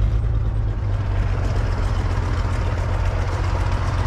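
Tractor engine idling steadily with a deep, even hum.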